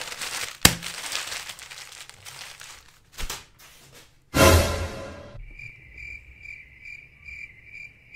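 Cricket-chirping sound effect, a high chirp repeating about twice a second from about five seconds in: the cartoon cue for an awkward silence. Just before it comes a loud burst of noise lasting about a second, and earlier there is soft rustling.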